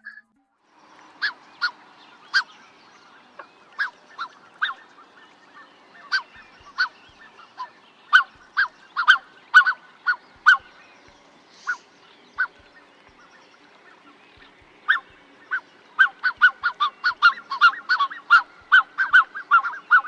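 Black-necked swan calling: short honking notes, scattered at first, then a fast run of calls over the last few seconds.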